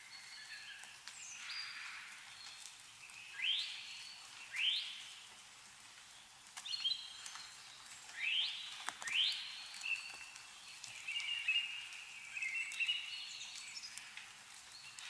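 Songbirds calling: several quick upward-sweeping whistled calls, then a longer warbling phrase, with scattered faint drips of meltwater falling from snowy trees.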